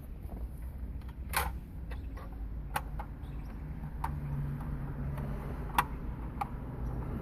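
A handful of short, sharp clicks and taps, as of small hard parts or tools being handled, spaced irregularly over a steady low hum; the sharpest tap comes near the end.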